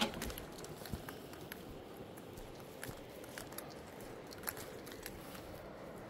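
Footsteps crunching on a dry dirt path through dry grass: faint, irregular crunches and clicks at a walking pace.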